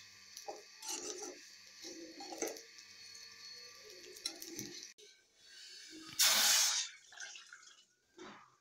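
A spoon stirring and scraping roasting vermicelli in a metal kadai, with a steady hiss underneath. About five seconds in it stops, and water is poured from a steel bowl into a steel pot, a loud splashing burst a little after six seconds and a shorter splash near the end.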